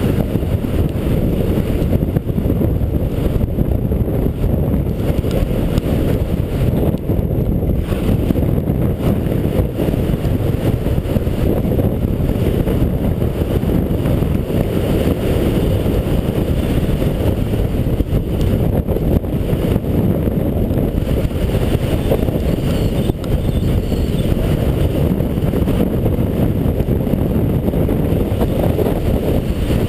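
Wind rushing over a GoPro camera's housing as a skier descends at speed: a loud, steady low rumble, with a fainter hiss of skis sliding on snow.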